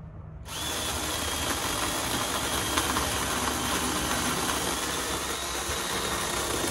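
Makita MUC002G cordless electric chainsaw switching on sharply about half a second in and then running steadily at full speed with a high motor-and-chain whine, cutting into a branch.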